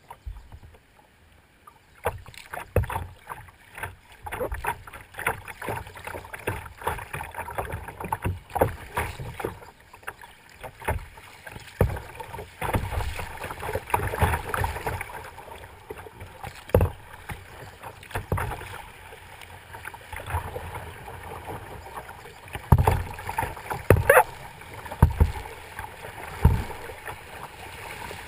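Water splashing and slapping against a kayak's hull as it runs down a river over small riffles, with irregular knocks and thumps, the loudest late on.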